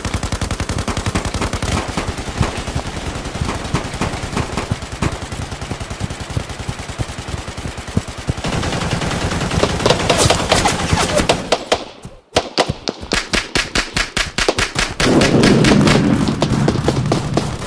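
Rapid automatic gunfire in long continuous bursts, several shots a second, with a brief break about twelve seconds in.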